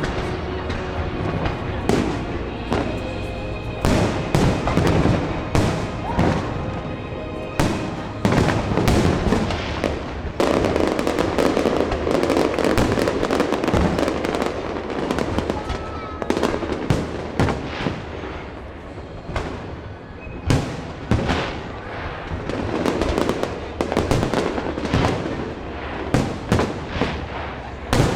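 Fireworks display: a dense, continuous run of sharp bangs and crackles, several a second, over a steady rumble of bursting shells.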